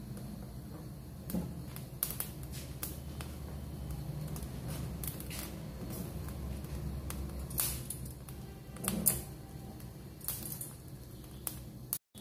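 Gas stove burner flame running with a low steady rumble, under scattered sharp clicks and crackles from green chillies roasting on a wire mesh grill over the flame and being turned by hand.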